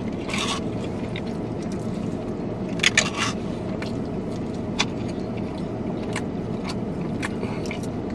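Plastic forks scraping and clicking in plastic takeout bowls of teriyaki rice while two people eat, with a louder scrape about half a second in and another about three seconds in. Underneath runs a steady low hum in the car's cabin.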